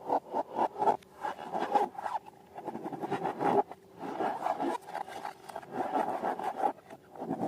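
Slime and rubber balloons worked by hand: a rapid, irregular run of scraping and rubbing strokes with small clicks.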